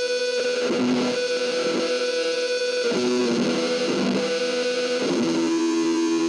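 Distorted electric guitar feedback: sustained, droning held notes that change pitch every second or so, played as an ambient wash.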